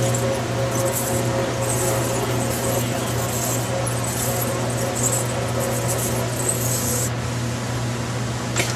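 Ultrasonic metal seam welder running: a steady machine hum with a constant tone, and a high hiss that comes and goes, then stops about seven seconds in. A sharp click near the end.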